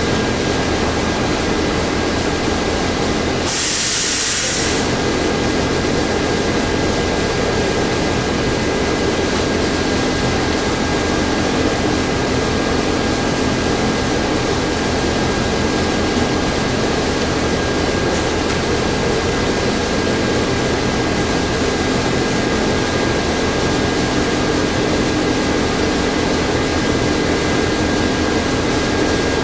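Steady mechanical drone with a few faint steady tones, broken about four seconds in by a short, sharp hiss lasting about a second.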